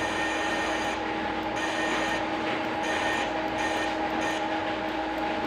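Simulated lathe machine sound from the simulator: a steady machine hum, with a higher hiss that cuts in and out several times.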